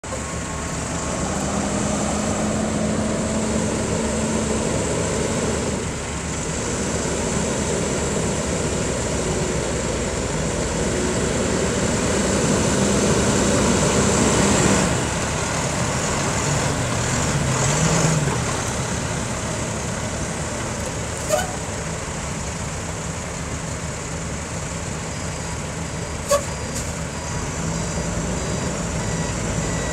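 Diesel engine of a 2005 International 4300 knuckle-boom truck running as the truck drives, with a steady low drone that grows louder until about halfway through and then eases off. A brief rise and fall in engine pitch comes a few seconds later, then two sharp clicks. Near the end the truck's reversing beeper starts.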